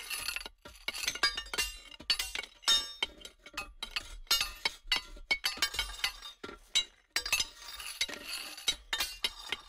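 Rapid, irregular clinking strikes, each with a short high ringing, in clusters with brief gaps between them.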